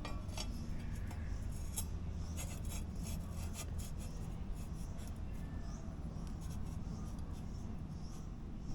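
Light clicks and scraping as brake parts are handled, densest in the first half, over a steady low hum.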